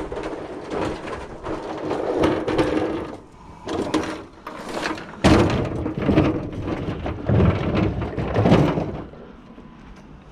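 Junk and scrap being handled: irregular scraping, rustling and clattering, with a sudden heavy knock about five seconds in.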